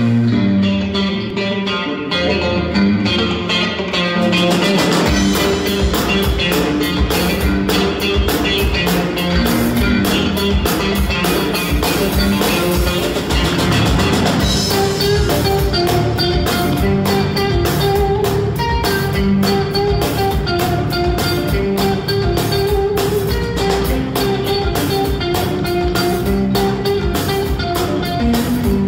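A live blues-rock trio of electric guitar, bass guitar and drum kit. An electric guitar riff plays alone at first, and about five seconds in the drums and bass come in with a steady beat under the guitar.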